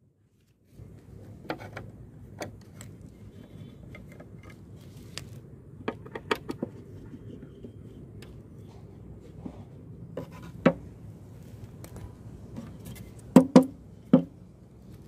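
Hands handling a wooden board on a wooden table: scattered light taps and knocks, then three sharper wood knocks close together near the end as the board is picked up, over a low steady outdoor background.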